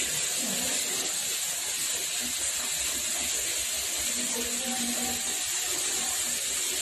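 Water running steadily from a tap into a bucket, a constant hiss.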